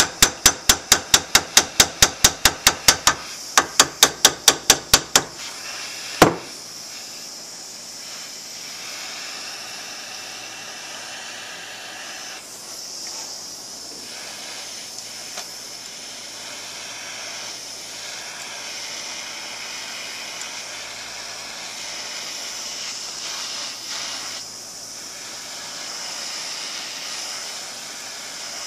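Hammer tapping rapidly on a KX250 Uni-Trak rocker linkage in a vise, about five sharp metal taps a second, to shift a worn bearing. There is a short pause after about three seconds, a second run of taps, and one harder hit a second later. After that comes the steady hiss of a handheld propane torch flame heating the rocker to loosen the bearing's press fit.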